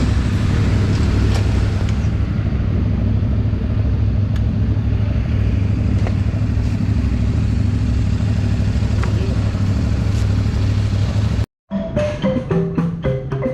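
Steady low rumble of a motorcycle ride, engine and wind noise together. About eleven and a half seconds in it cuts off abruptly and music with a percussive beat starts.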